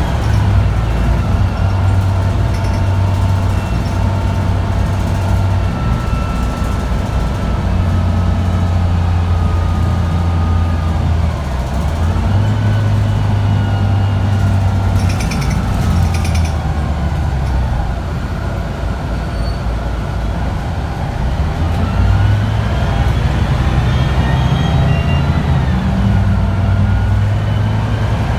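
Cabin sound of a Mercedes-Benz O405G articulated diesel bus under way: a steady low engine drone that rises and falls as the bus pulls away and eases off. A rising whine comes in about twelve seconds in and again in the last third as it accelerates.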